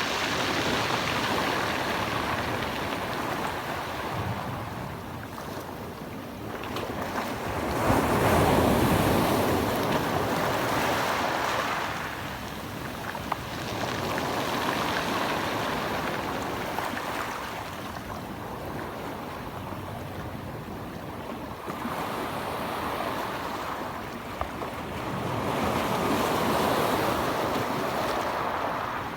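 Mediterranean Sea waves washing in and drawing back in slow swells, about four over the stretch, the loudest about eight seconds in.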